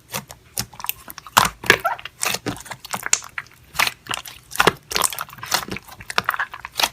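Slime being pressed and squished by hand, giving irregular crackling pops and clicks.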